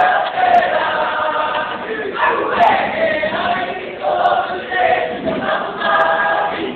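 A group of voices singing together, a choral song carried by many people at once, in phrases with short breaks between them.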